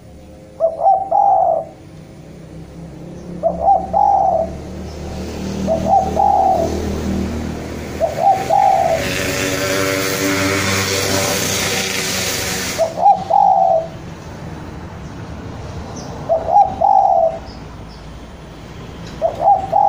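Spotted dove (Javan derkuku) cooing its territorial call at a rival. It gives about seven short phrases of a few low notes each, one every two to three seconds. A rushing noise swells under the calls in the middle and cuts off suddenly about thirteen seconds in.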